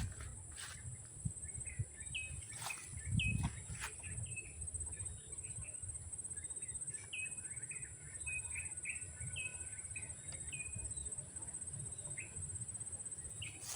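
Birds chirping in short, scattered call notes over a steady high-pitched buzz, with low handling bumps, one louder about three seconds in.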